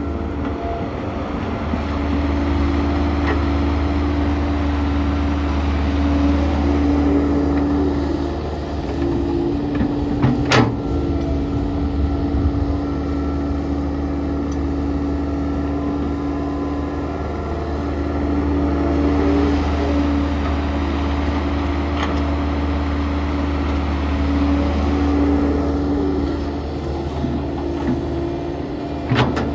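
Kobelco SK120-1 hydraulic excavator's diesel engine running steadily under working load, its note swelling and easing twice as it works through a loading cycle. Two sharp bangs stand out, about ten seconds in and again near the end.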